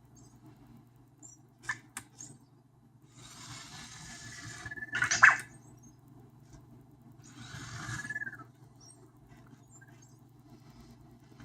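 Anki Vector robot moving about: two spells of whirring from its small tread motors, each with short high electronic chirps. The loudest chirp comes about five seconds in, and there are a couple of small clicks near two seconds in.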